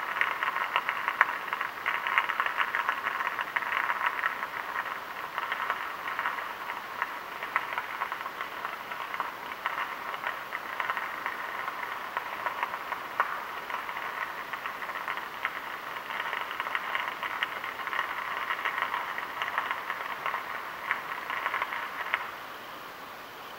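High-voltage arc on an electricity pylon crackling and buzzing continuously, full of sharp snapping clicks. It cuts off suddenly near the end as the line melts through and the power fails.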